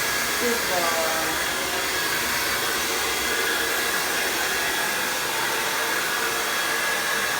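Hair dryer running steadily, blow-drying a wet puppy's coat after its bath.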